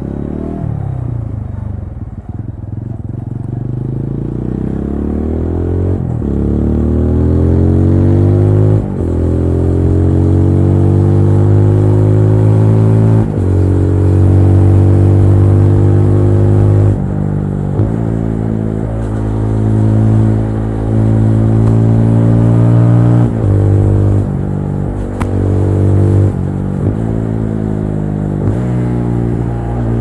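TVS Apache RTR 200 4V's single-cylinder engine under way. It eases off at first, then pulls up through the gears, the pitch climbing and dropping at each of three upshifts. After that it runs at a steadier speed with a few brief throttle lifts.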